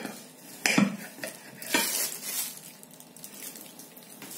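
Large kitchen knife sawing through a hard-frozen log of pistachio booza ice cream on a plate. There is a sharp knock and scrape of the blade a little under a second in, and another scraping stroke near two seconds, then it goes quieter.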